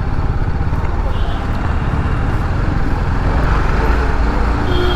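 TVS Apache RR310 riding at steady highway speed on its stock exhaust: wind rush over the rider's microphone with the engine running underneath.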